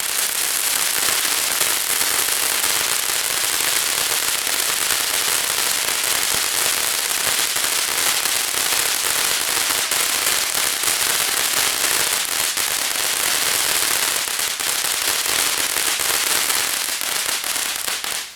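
Consumer fireworks crackling in a dense, continuous rush of tiny pops from the grand finale. The crackle holds steady and then stops abruptly at the very end.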